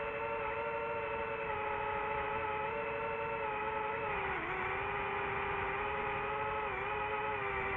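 DJI FPV drone's motors and propellers whining steadily in flight, one pitched tone with its overtones; the pitch dips briefly twice, a little after halfway and again near the end, as the throttle eases.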